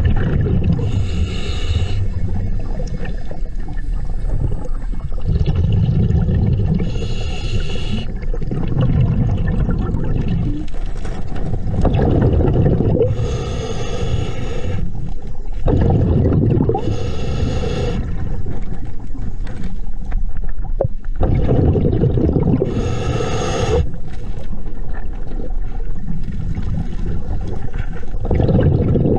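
A scuba diver breathing through a regulator, heard underwater: a continuous rumble of water and bubbles, with six short hissing breaths spread through.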